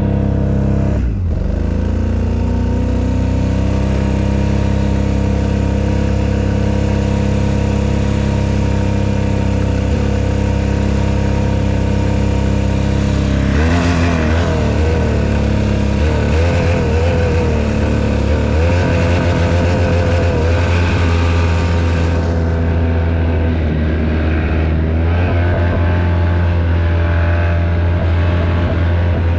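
2008 Polaris Sportsman ATV fitted with tracks, its engine running hard under load as it is ridden. The note is steady through the first half with a brief dip about a second in, then wavers up and down in speed through the second half.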